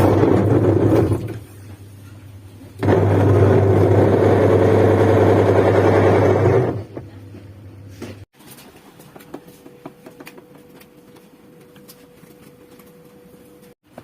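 LG washing machine's motor humming as it turns the drum in two bursts, the second about 4 s long, then stopping and leaving a faint steady tone. The drum turns weakly, which the owner blames on a counterfeit replacement part.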